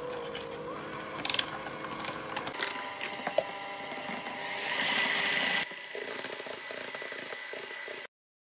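Electric hand mixer running, its wire beaters whipping eggs and sugar in a plastic bowl, with a few clicks in the first three seconds. It runs louder for about a second midway, then cuts off suddenly near the end.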